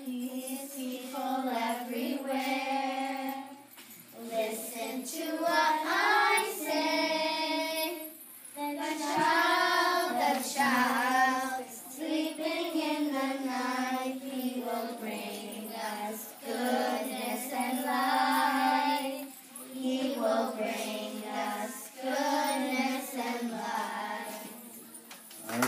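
A group of young girls singing a Christmas carol together from lyric sheets, in phrases of a few seconds with short breaks for breath.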